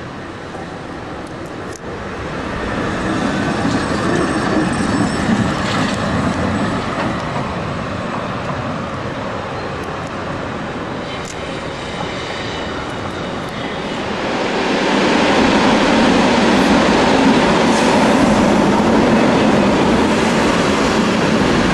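Old six-axle Wegmann articulated tramcars running on street track, a steady rumble of wheels on the rails. It grows louder about fifteen seconds in, as a tram passes close by.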